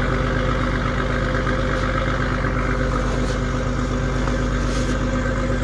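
Engine of a mechanized fishing boat running at a steady speed, an even low drone that holds without change.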